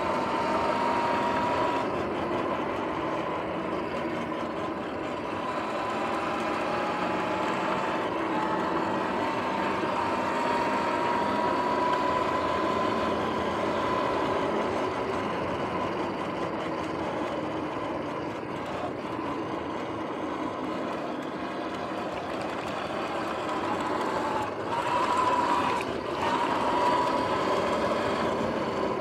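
Sur-Ron X electric dirt bike riding along at speed: a steady electric-motor whine over tyre and wind rush. The whine climbs slowly in pitch over the first dozen seconds, and there is a brief louder swell near the end.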